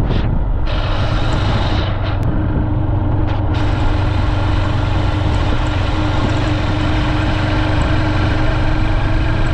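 Motorcycle engine running at a steady speed while riding, with road and wind noise.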